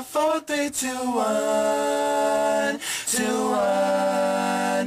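Men singing a cappella: a few quick notes, then two long held notes with a short break about three seconds in.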